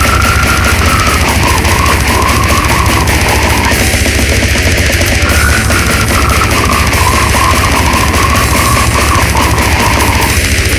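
Brutal death metal recording: loud, dense distorted music with a heavy, steady low end. Above it runs a wavering higher melodic line, which breaks off briefly about four seconds in.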